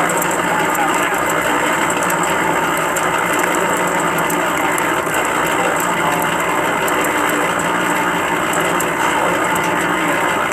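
Harbor Freight cement mixer running steadily, its gear drive turning an expanded-metal trommel screen drum, with a continuous rattling clatter. Compost is tumbling in the drum and sifting through the screen.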